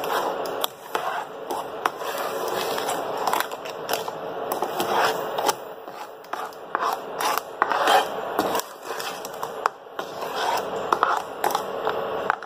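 Plastic spoon stirring mango purée and granulated sugar in a nonstick pan, scraping across the pan base in irregular strokes with the undissolved sugar grating under it.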